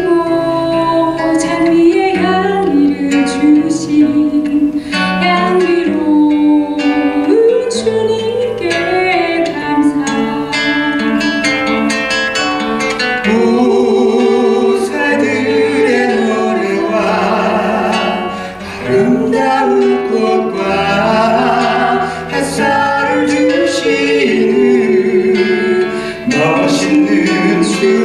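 Man and woman singing a Korean worship song as a duet, the woman into a microphone, accompanied by a classical guitar.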